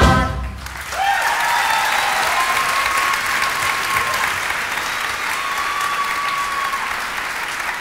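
An audience applauding, with a few long cheers over the clapping. A musical number's final chord cuts off at the start, and the applause swells in about a second in.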